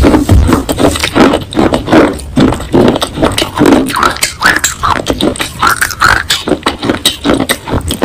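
Close-miked crunching and chewing of baked clay pot pieces in the mouth: a dense, irregular run of sharp crunches.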